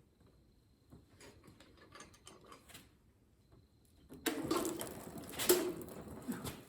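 Hand tools and metal engine parts being handled: light mechanical clicking, then a louder stretch of clattering and scraping with sharp clicks starting about four seconds in.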